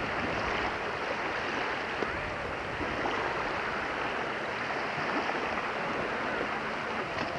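Steady rushing noise of small waves and wind at the seashore, with faint distant voices.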